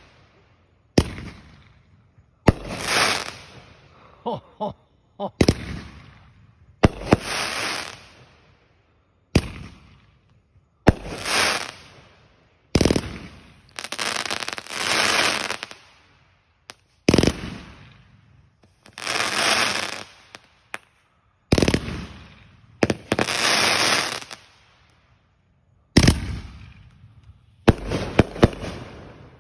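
Consumer aerial firework cake firing shot after shot, about a dozen in all, roughly every one to two seconds. Each shot is a sharp bang that trails off over a second or two as the shell breaks.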